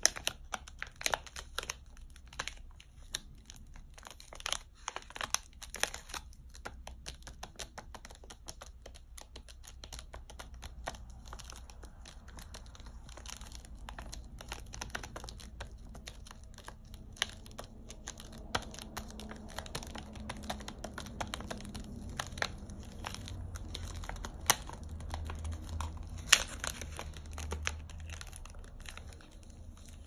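Fingernails tapping and scratching on a wrapped chocolate bar: quick, irregular clicks with the plastic wrapper crinkling, picked up close on a small microphone.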